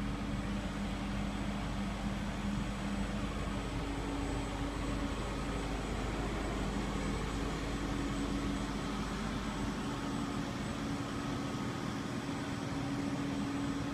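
Construction machinery engines running steadily: an even hum with a low drone that shifts in pitch about four seconds in.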